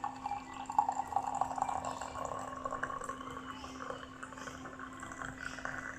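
Hot water being poured into the bottom chamber of a moka pot, the pouring tone rising as the chamber fills, over a steady low hum.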